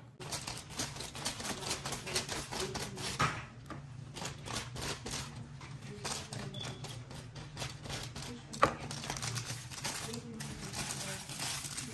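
Aluminium hair foil crinkling and crackling as sheets are handled, brushed with dye and folded flat against the hair: a dense, irregular run of small crisp clicks over a steady low hum.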